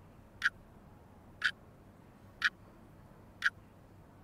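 A clock ticking steadily once a second, four sharp ticks, over a faint room hiss.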